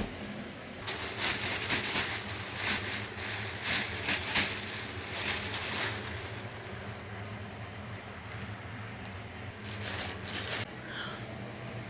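Irregular rustling and scraping handling noises, busiest in the first half and sparser later, over a steady low hum.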